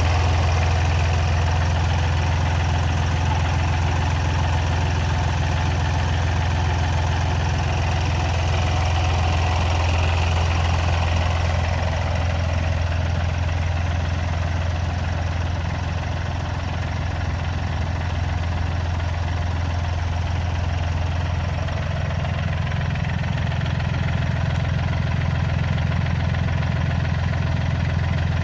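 Fendt 240S tractor's diesel engine idling steadily with an even low hum.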